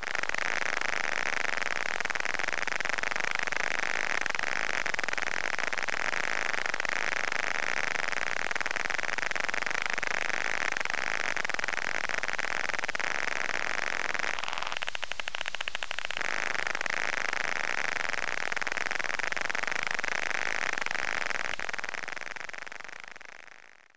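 Steady hissing static, with a short run of fast, even clicks about fifteen seconds in; it fades out near the end.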